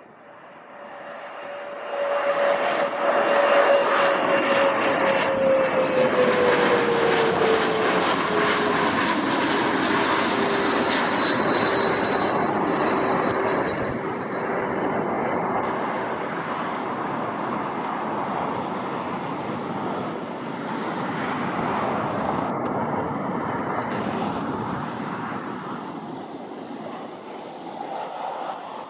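Aircraft passing close by with its engines running. The sound rises quickly to a loud rush, and an engine tone drops in pitch as the plane goes past. The noise then stays loud and slowly eases off near the end.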